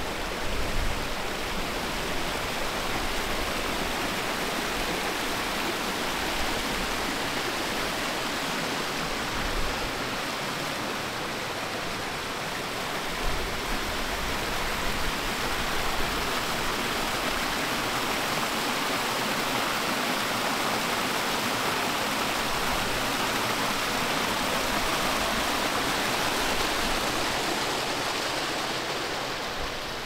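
Rushing water of a moorland brook tumbling over small waterfalls, a steady full hiss that grows a little louder past the middle and falls off near the end.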